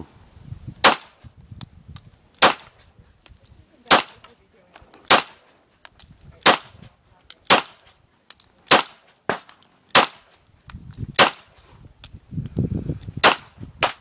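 Gunshots from a firearm at a shooting range: about ten single shots, fired one at a time at a steady pace of roughly one every second or so, with a slightly longer pause before the last shot.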